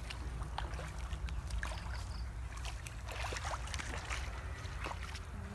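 Water sloshing and splashing with scattered small knocks, as people wade and work in shallow pond water, over a steady low rumble.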